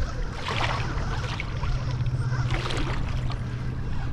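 Shallow water splashing and sloshing in two short bursts, about half a second in and again just before three seconds, over a steady low hum.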